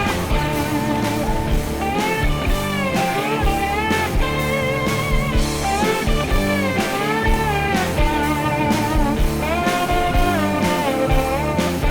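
Guitar-led rock music with bending, sliding notes over a steady beat.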